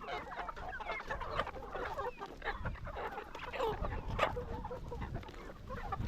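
A flock of laying hens clucking, with many short calls overlapping one another throughout.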